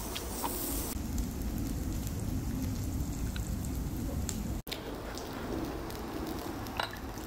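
Pork belly sizzling on a large stone griddle: a steady frying hiss with a few faint pops, briefly cutting out about halfway.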